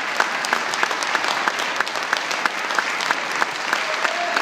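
Audience applauding, with one clapper close by standing out at about four claps a second.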